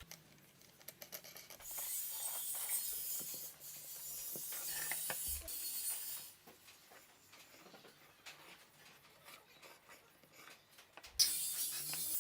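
A woodworking tool scraping across wood in two spells of high, hissing friction, the first about four and a half seconds long and the second starting near the end, with light clicks and taps between.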